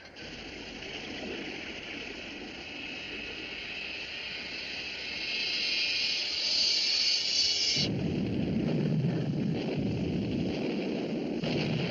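Naval battle sound effects from a war film's soundtrack: a rushing hiss that grows louder for about eight seconds, then cuts off suddenly and gives way to a low, heavy rumble.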